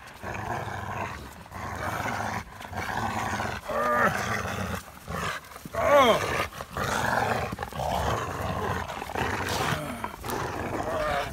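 Two Rottweilers growling continuously in a tug-of-war over a hard plastic ball, with a few short higher-pitched cries, the clearest about four and six seconds in.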